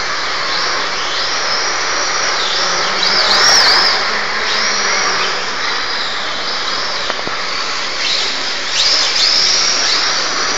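Electric RC drift car's motor whining in repeated high sweeps that rise and fall as the throttle is worked, over a steady hiss of its hard tyres sliding on smooth concrete. The whine is loudest about three and a half seconds in and again near the end.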